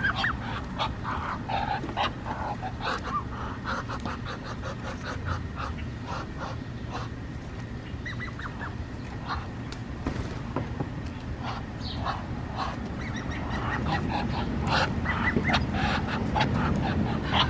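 White ducks feeding on feed scattered on the ground, giving short calls now and then, with many quick clicks throughout.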